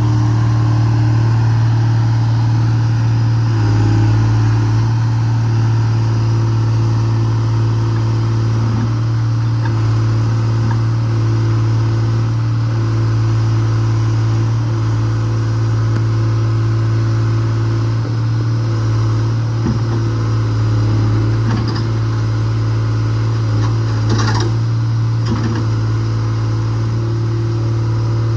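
125B excavator's diesel engine running steadily under load as the machine works, with a few knocks about twenty seconds in.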